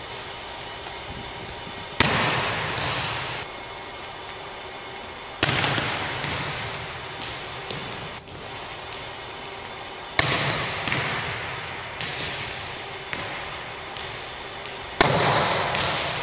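Volleyballs being struck and bouncing on a hardwood gym floor: a dozen or so sharp slaps, irregularly spaced, each followed by an echoing tail. A brief high squeak about halfway through.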